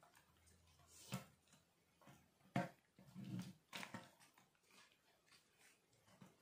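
Faint handling noise: about four soft knocks and bumps as small plastic RC crawler chassis are moved and set down on a tabletop mat, the loudest about two and a half seconds in.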